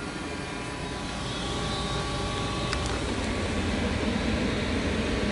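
Goodman 95% efficient gas furnace running just after startup: a steady rush of air and burner noise over a low hum, slowly growing louder.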